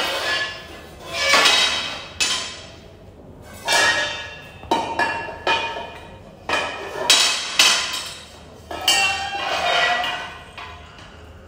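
Metal tubes and fittings of a clothes stand knocking and clinking together during assembly: about ten sharp metallic knocks at uneven intervals, each ringing briefly.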